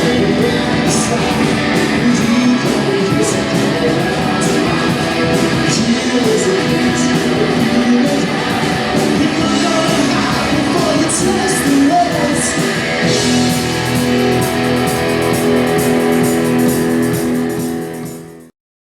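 Live rock band playing, electric guitars strumming under singing; the sound drops away abruptly near the end.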